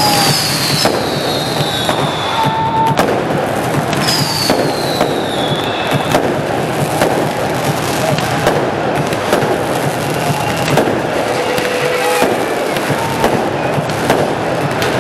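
Fireworks going off: dense crackling with many sharp bangs, and two whistles gliding down in pitch, one at the start and one about four seconds in.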